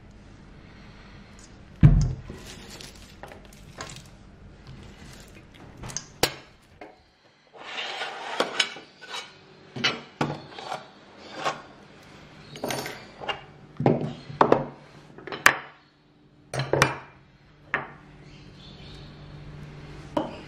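Metal pâté en croûte mould being handled and its hinged side panels worked on a silicone pastry mat: a string of sharp metal clinks and clanks, after a single heavy thud about two seconds in.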